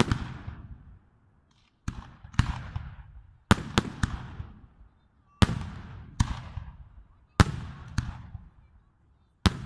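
Aerial firework shells bursting one after another: about ten sharp bangs, some in quick runs of two or three, each trailing off in a fading rumbling echo.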